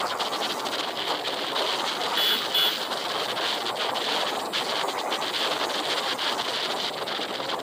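Steady rush of wind and road noise from a vehicle moving along a paved road, with two short high beeps about two seconds in.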